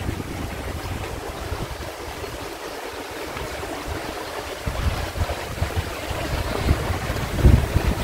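Wind gusting against the microphone in low rumbling buffets over a steady rush of river water; the buffeting eases a couple of seconds in, then returns, strongest near the end.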